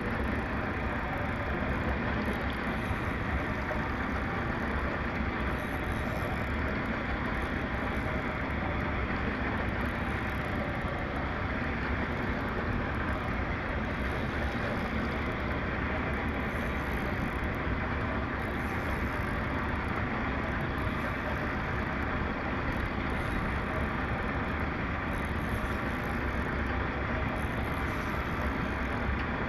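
Steady rushing noise aboard a small boat at sea, with a faint high hiss swelling about every three seconds.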